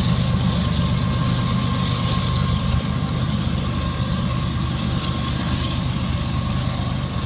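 Steady low diesel rumble from a freight train's locomotive as it moves away, easing slightly in level, with a faint steady whine above it.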